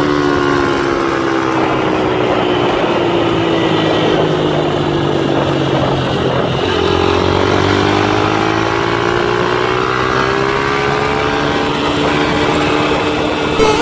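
Honda CG 160 Fan's single-cylinder four-stroke engine running under way with wind rushing on the microphone. The engine note falls as the bike slows, jumps at a gear change about halfway through, then climbs steadily as it accelerates again. A short knock near the end.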